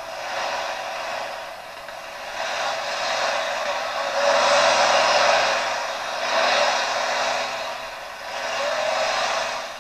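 Pulling tractor's engine running hard under load, its noise swelling and fading every second or two, heard as a thin hiss on an old, worn recording.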